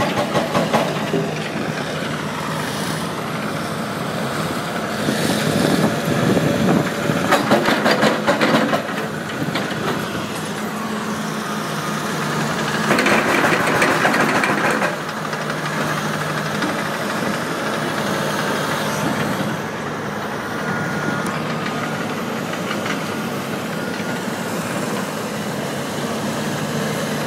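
Diesel excavators working: engines running steadily, with a burst of rapid metallic clattering about a third of the way in and a louder, heavier stretch around the middle as the machines take load.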